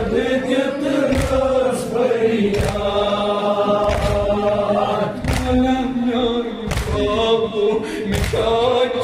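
Men chanting a Kashmiri noha (a mourning lament) in a steady melody, with the hand-on-chest thumps of matam beating in rhythm about once a second.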